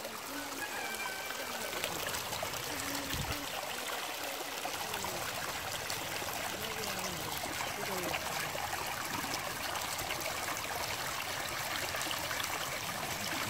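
Shallow muddy water running steadily through a gap in a mud bund into a bamboo cage fish trap, a continuous stream-like trickling and splashing.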